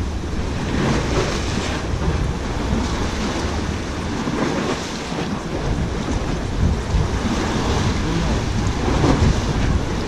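Wind buffeting the microphone over the steady wash of sea waves against the concrete pillars of a breakwater.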